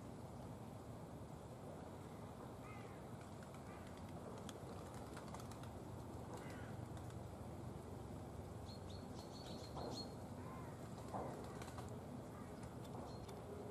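Faint scattered clicks and rustles of a grey squirrel foraging in dry leaf litter, with a few short bird chirps faintly in the background.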